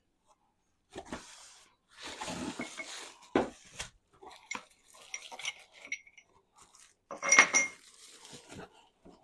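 Plant-stand parts being unpacked from their box: packaging rustling and scattered knocks and clinks of the pieces, the loudest a ringing clank about seven seconds in.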